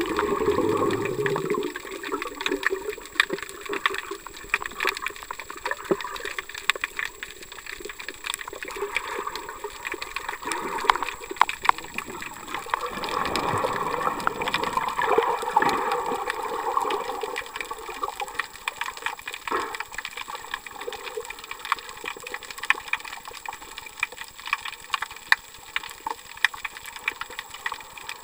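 Sea water moving around a camera held underwater in shallow coastal water: a continuous wash with many small sharp clicks and crackles. The sound is louder for the first couple of seconds and swells again about halfway through.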